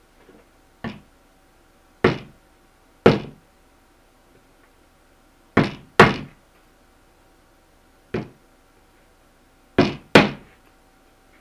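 Hammer driving nails through a beaver pelt into a wooden boarding board, tacking the hide out round its edge. Eight sharp blows at an uneven pace, a few of them in quick pairs.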